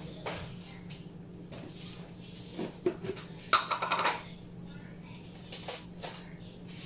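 Kitchen cabinet door opened and containers clinking and knocking as they are moved about on the shelf, with a cluster of loud clinks about halfway through, over a steady low hum.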